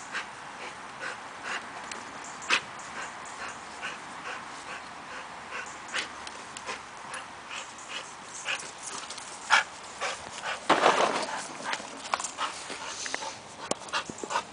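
A bulldog-type dog panting and scuffling about on dry leaves and grass: a run of short irregular clicks and rustles, with one louder scuffle about eleven seconds in.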